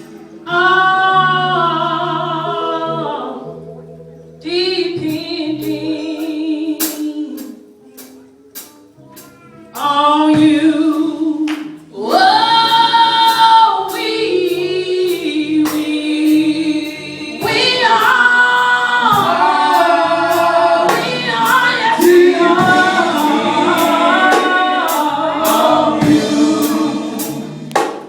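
Gospel-style choir singing with vibrato, with sharp percussive strikes between the phrases. The singing dips briefly a few times and comes back.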